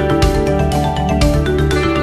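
Background music with a steady beat, about two strong beats a second over sustained notes.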